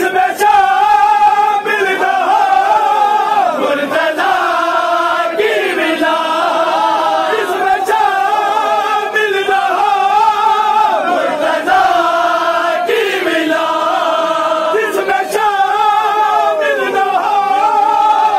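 A group of men chanting a Shia mourning chant (noha) together, unaccompanied, in long held, wavering notes.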